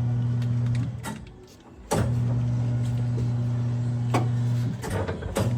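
Tire changer's electric turntable motor running in short bursts, a steady low hum with a click at each start. It runs for about two seconds, stops briefly, runs again for nearly three seconds, then gives a short half-second burst near the end.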